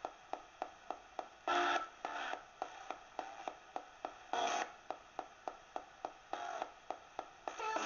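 Direct Linc ghost box radio sweeping through stations: hissing static chopped by steady clicks, about four a second, with brief snatches of broadcast sound breaking through a few times, the longest near the end.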